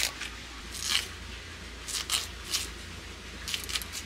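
Fresh young kohlrabi being stripped of its leaf stalks and cut against a boti blade: several short, crisp crunches and snaps, roughly one a second.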